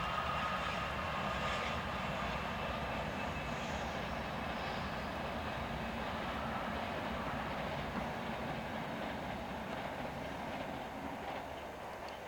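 A train running along the line, a steady rumbling noise with a faint whine early on, slowly fading near the end.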